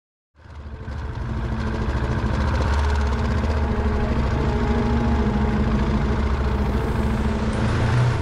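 Motorcycle engine running at a steady speed, fading in over about the first second.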